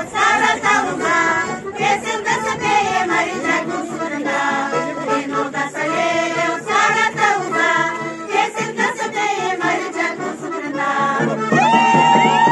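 A women's folk choir singing a Bulgarian folk song in several voices, with accordion accompaniment. Near the end a long, steady held note sounds.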